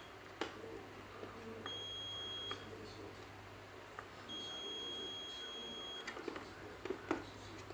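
Multimeter continuity beeper sounding twice, a short beep and then a longer one of nearly two seconds, with light clicks of test probes tapping component legs. The continuity beep signals a near short between the probed points, as with the shorted MOSFET being checked.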